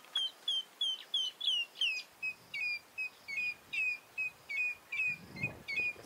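A bird calling in a long run of short, falling whistled notes, about three a second, the series dropping to a lower pitch about two seconds in.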